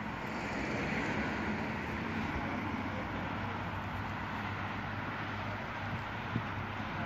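DAF LF fire engine's diesel engine idling with a steady low hum, and a single short knock near the end.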